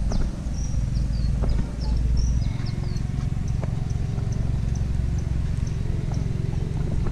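Small birds chirping in short rising and falling calls, busiest in the first few seconds, over a steady low rumble, with scattered soft clicks of footsteps on a paved path.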